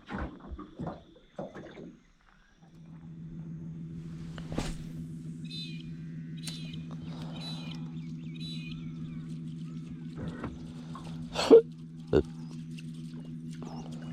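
Knocks and scrapes on a boat, then a boat motor starts humming steadily about three seconds in and keeps running, with a few sharp knocks over it.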